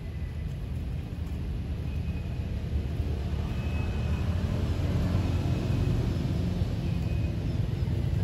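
Steady low outdoor rumble, swelling a little midway, with faint short high chirps about once a second.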